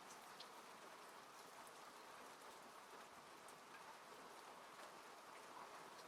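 Faint steady rain falling on a car, heard from inside the cabin, with a few separate drops ticking sharply here and there.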